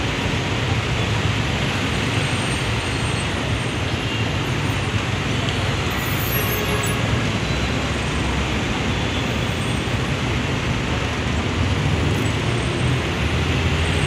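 Steady traffic noise from a congested road: buses, vans and cars crawling and idling, with a constant low engine rumble underneath.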